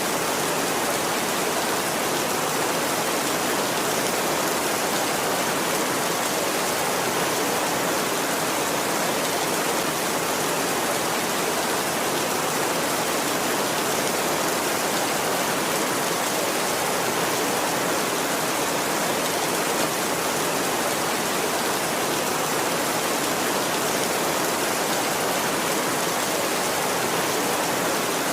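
Heavy rain falling steadily on a tin roof, a dense, even hiss with no thunder.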